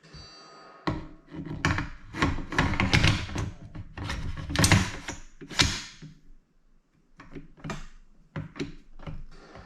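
Handling noise from a bolt-action rifle being moved about: irregular knocks, clicks and rubbing, in two busy stretches with a short lull about six seconds in.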